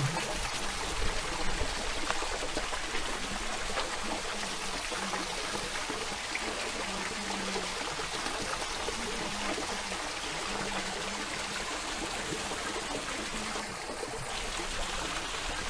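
Steady sound of running water, an even rushing trickle.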